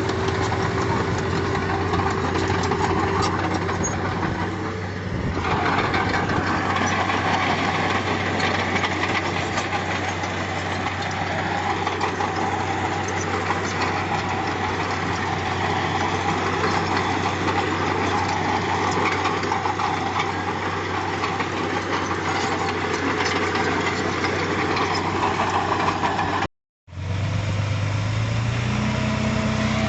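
Diesel engine of heavy earthmoving machinery running steadily, with a short dip about five seconds in. Near the end the sound drops out for a moment and comes back with a different engine note.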